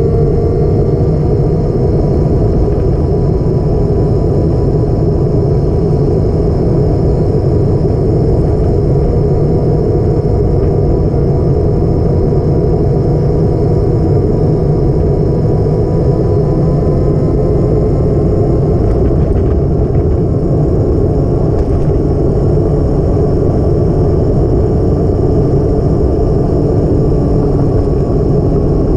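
A vehicle under way at a steady pace: a loud, even rumble with the engine's note holding nearly constant and drifting slowly in pitch.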